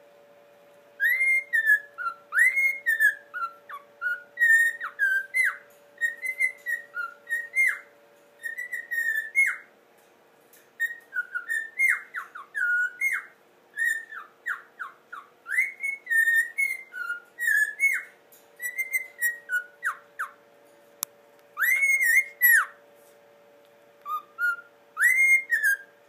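Cockatiel whistling a tune: a long run of short, clear notes that slide up and down, sung in phrases with a few short pauses. It starts about a second in and stops just before the end.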